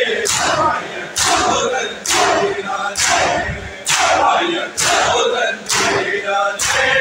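A crowd of men chanting a noha in unison while beating their chests (matam) together, a loud collective slap landing roughly once a second in time with the chant.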